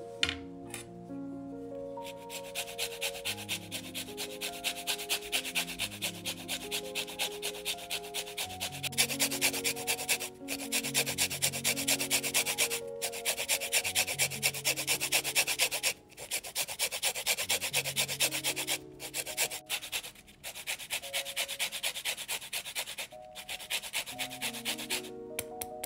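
Rapid rhythmic scraping of a kitchen utensil during hand food preparation, about three or four strokes a second with a few short breaks, over soft background music.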